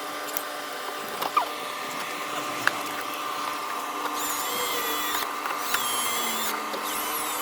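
A few light clicks and knocks of plastic door parts being handled while the door frame is put back, over a steady background hum. High chirping squeaks come in short runs during the second half.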